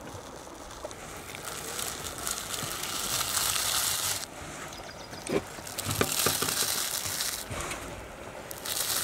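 Skin being pulled and torn away from the flesh of a large whole fish: a rough tearing rasp in three long pulls with pauses between, and a few soft knocks in the middle.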